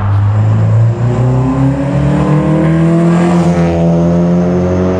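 Exhaust of a 9th-gen Honda Civic Si's 2.4-litre K24 four-cylinder, fitted with an aftermarket cat-back exhaust and a Skunk2 catless downpipe, as the car accelerates hard past. The engine note climbs steadily in pitch, and there is a brief rush of tyre and wind noise as the car passes about three seconds in.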